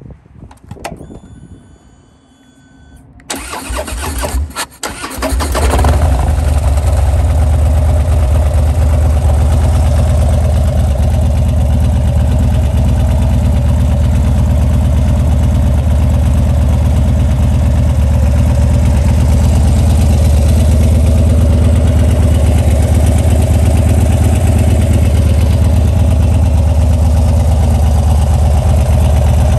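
Harley-Davidson Dyna FXDB's 103 cubic inch V-twin, with an aftermarket Bassani exhaust, being started: after a couple of seconds of faint whine, the starter cranks for about two seconds, and the engine catches about six seconds in. It then idles steadily, deep and loud.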